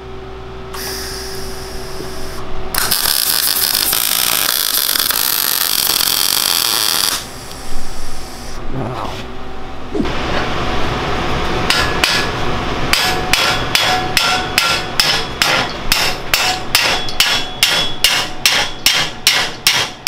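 MIG welder laying plug welds in steel mini bike frame tubing: a steady hiss lasting several seconds. Later, a hammer striking a steel frame tube about twice a second, driving a tubing extension down over an inner sleeve.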